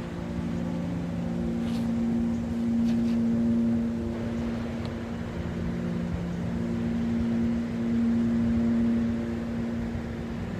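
Ambient background music: soft held synth chords whose notes change every few seconds, over a low rumble.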